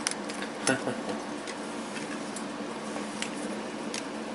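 A few scattered light clicks and taps, as of small parts being handled, over a steady faint hum.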